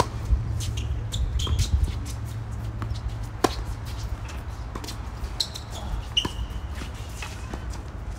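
Tennis balls struck by rackets during a doubles rally: a series of sharp pops a second or so apart, the loudest about three and a half seconds in. Short high squeaks come in between, over a steady low rumble.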